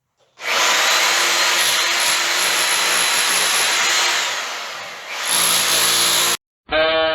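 Power drill running hard against the plaster of a stone chimney, stripping it off. The noise eases off about four seconds in, picks up again and stops abruptly near the end, just as swing music starts.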